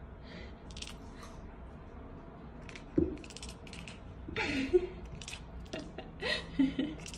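A serval kitten hissing and spitting in short repeated bursts, with a sharp thump about three seconds in and a couple of short growling calls in the second half.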